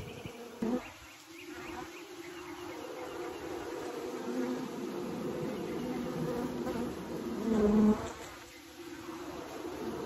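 Honey bees of a newly hived swarm buzzing steadily in a mass over the open top bars of a hive. About eight seconds in, one bee passes close and buzzes louder for about half a second.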